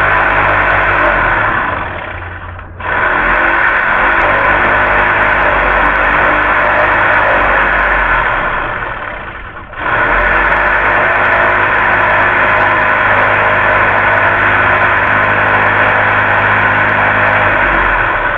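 A loud power tool running in long runs. It winds down and stops twice and starts again straight away each time.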